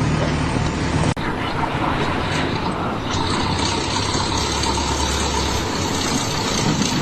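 Machine engine running steadily with a low hum, broken by an abrupt cut about a second in, after which a similar steady engine rumble continues.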